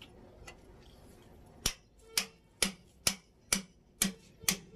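Steel hammer blows on a metal tool at a truck trailer's wheel hub, tapping the hub nut tight on the axle during a wheel-bearing refit. They start under two seconds in and come evenly, about two a second, each a sharp strike with a short metallic ring.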